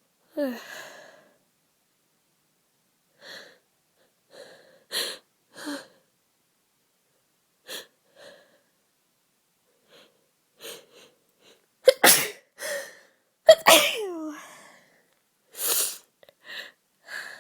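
A woman with a heavy head cold sneezing over and over, short sudden bursts with quick breaths between them. The two loudest sneezes come close together about two-thirds of the way through, some ending in a voiced cry that falls in pitch.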